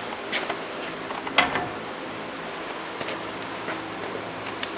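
Light clicks and knocks of freshly cut metal pieces being handled for measuring, the sharpest about a second and a half in, over a steady low hum.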